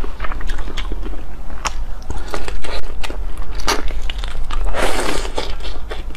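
Close-miked eating of whole raw marinated shrimp: wet sucking and smacking with many short crackling clicks of shell being bitten, and a longer noisy suck about five seconds in.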